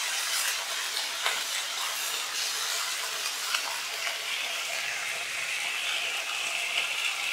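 Potato sticks frying in a little oil in an aluminium kadai: a steady sizzle, with a wooden spatula stirring them at the start.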